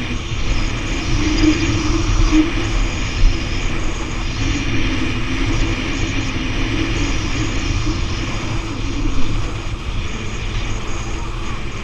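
Speedboat engine running steadily under way, with wind and water noise.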